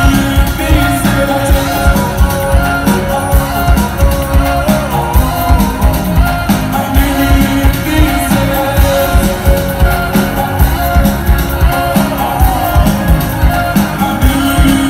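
A live band's music played loud through a concert PA, recorded from the crowd, with a steady, heavy beat.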